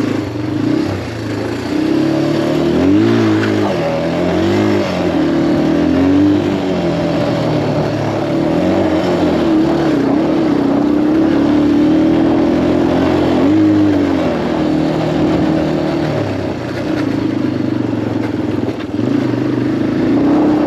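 Farm motorbike engine running under way over a rough dirt track, its revs rising and falling over and over as the throttle is worked.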